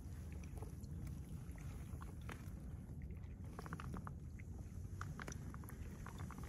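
Light splashing and lapping of shallow water around a hand-held brown trout, small irregular ticks and drips over a steady low rumble.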